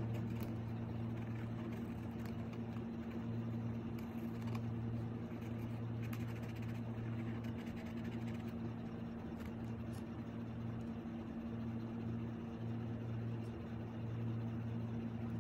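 A steady low hum of background room noise, with a few faint scratchy ticks of a marker drawing on paper.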